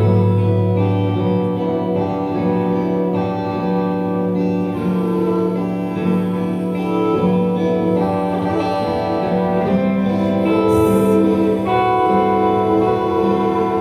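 Instrumental music of long held chords that change every second or two.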